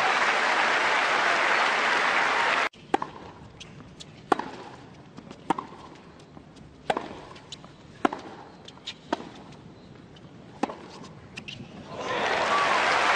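Crowd applause, cut off suddenly a little under three seconds in. Then a tennis rally: sharp racket strokes on the ball about every second and a half, with ball bounces between them. The crowd applauds again near the end.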